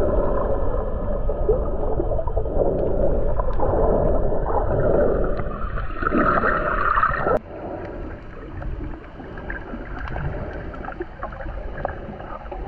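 Muffled water sound picked up by an action camera's microphone underwater: sloshing and gurgling, with no clear high tones. About seven seconds in it drops abruptly to a quieter, steadier muffled wash.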